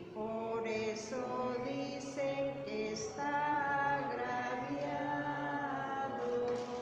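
Slow unaccompanied chant sung by voices, moving stepwise through notes each held for about half a second to a second.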